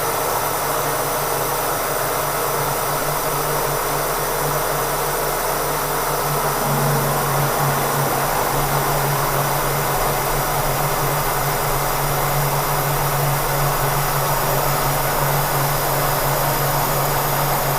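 Kearney & Trecker 307 S-12 milling machine running under power feed while a roughing (hog) end mill takes a 50-thousandths cut across a steel vise block: a steady dense cutting and machine noise with a low hum that grows stronger about six and a half seconds in.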